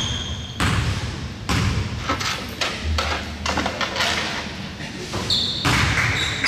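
Basketball bouncing on a hardwood gym floor, a string of echoing thuds roughly a second apart, with a short high squeak near the end.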